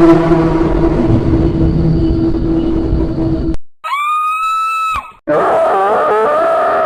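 Short sound-effect clips cut back to back: a harsh, noisy growl over a steady hum that stops abruptly, then a clean high held tone for about a second, then a wavering, voice-like groan.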